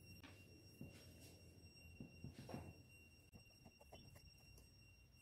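Near silence: a few faint soft taps and scrapes of a kitchen knife cutting through rolled dough onto a wooden board.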